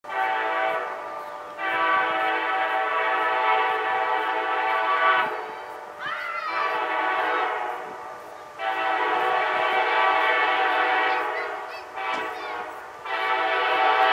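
Diesel freight locomotive's multi-chime air horn sounding a series of long blasts, each held for several seconds, as the train approaches. Between the long blasts the horn is softer or briefly cut off.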